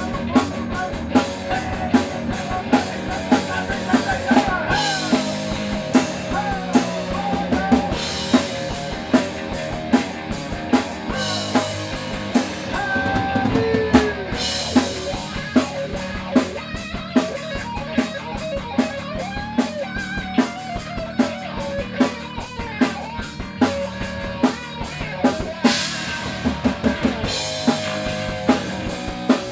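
Rock band playing live: a drum kit with steady kick and snare hits, electric guitar and bass guitar, with a singer's vocals over the top.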